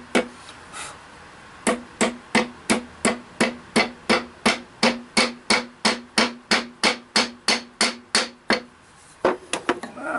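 Wooden mallet driving a yellow pine wedge into the slotted end of a wooden handle seated in a ball pein hammer head, setting the head tight. After one blow and a short pause come about twenty steady blows at roughly three a second, each with a short ring, then a few lighter taps near the end.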